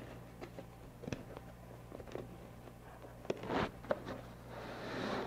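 Cardboard cooler box being opened by hand: a few light taps and knocks of the flaps and lid, then a soft rustle of foam packing sliding against the cardboard near the end, over a steady low hum.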